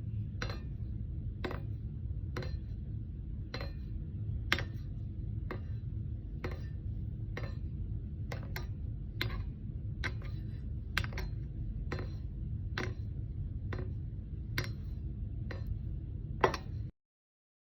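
Sharp clicks about once a second, not quite evenly spaced, over a steady low rumble, cutting off suddenly near the end.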